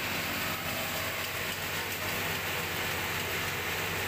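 Rice transplanter running: its small engine hums steadily and its planting arms cycle, under an even mechanical hiss.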